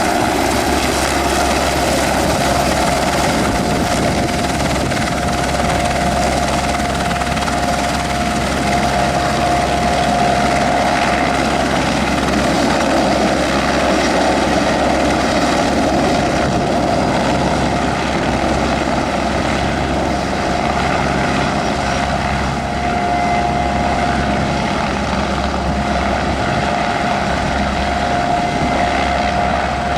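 Aerospatiale AS355F2 Ecureuil 2 twin-turbine helicopter running steadily and loudly close by, a constant turbine whine over the rotor noise.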